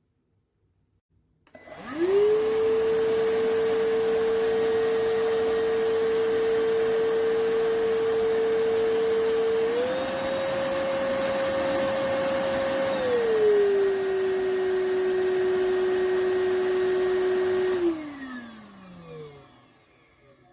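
iwoly C150 cordless stick vacuum motor switching on and running with a steady whine, stepping up to a higher speed and then down to a lower one. It then switches off and spins down with a falling whine.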